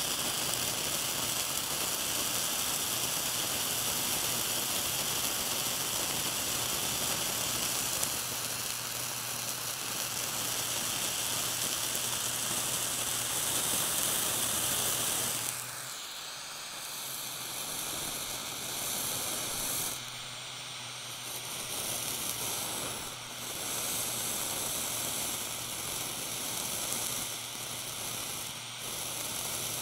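Small handheld butane blowtorch flame hissing steadily against a block of blue cheese, with the melting cheese sizzling. About halfway through the hiss turns quieter and thinner, with a few brief dips after.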